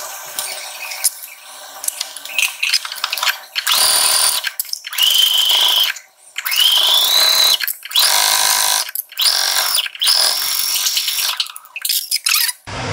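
Electric domestic sewing machine topstitching close to the edge in a series of short runs, starting about three and a half seconds in. Its high motor whine rises in pitch as it speeds up, with brief stops between runs.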